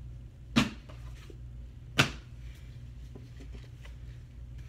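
Two sharp knocks about a second and a half apart as books are handled on a desk, over a steady low hum.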